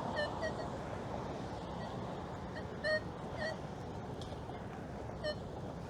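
A Nokta Triple Score metal detector giving several short beeps as the coil sweeps over a target, which the detectorist takes for more foil-backed cardboard. The beeps sit over a steady background hiss.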